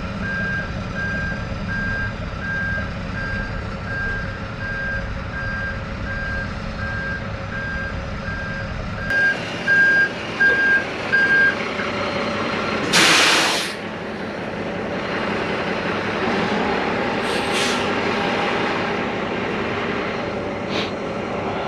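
Truck's back-up alarm beeping at an even pace over a running diesel engine, stopping about eleven seconds in. About two seconds later comes a loud short hiss of released air, like an air brake, then a few fainter hisses.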